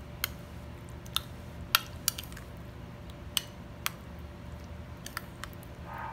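Metal spoon stirring a thick tomato sauce in a ceramic bowl, clinking against the bowl's sides in a dozen or so sharp, irregular taps.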